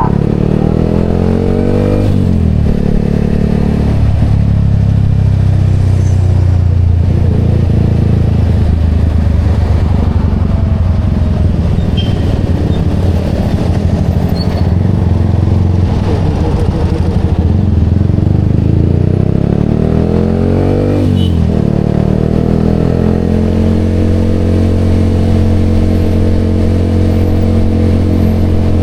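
Yamaha XSR motorcycle engine running through an aftermarket Vmax canister exhaust while riding. The engine note falls off in the first couple of seconds, then holds mostly steady. About 20 seconds in, it revs up quickly and drops back before settling again.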